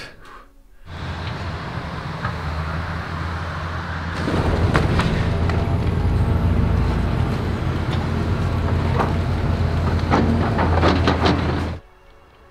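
Steady low engine hum with road noise, as from a vehicle running. It starts suddenly, grows louder about four seconds in, and cuts off abruptly near the end.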